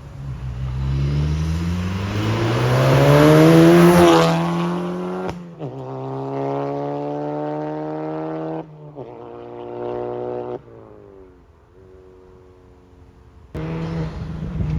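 Volkswagen Mk7 GTI's turbocharged four-cylinder running through a catless downpipe and APR cat-back exhaust with the valves open, accelerating through the gears: the engine note climbs for about four seconds, drops at an upshift, climbs again, then falls away as the throttle is lifted. Near the end a louder engine sound cuts back in suddenly.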